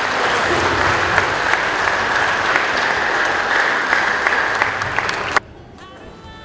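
Audience applauding, a dense patter of many hands clapping, which cuts off suddenly about five seconds in and leaves a much quieter background with faint voices.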